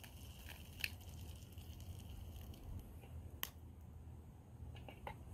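Sticks burning in a small steel rocket stove: a few faint, sharp crackles spaced a second or more apart over a low steady rumble.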